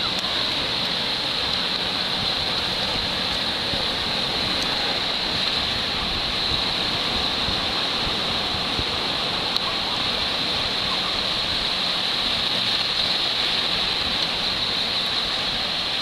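Ocean surf washing onto the beach: small waves breaking at the shoreline in a steady, even rush.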